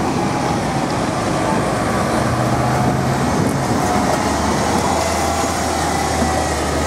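City transit buses driving past close by and pulling away through an intersection, their engines running under steady street traffic noise, with a low engine hum settling in about halfway through.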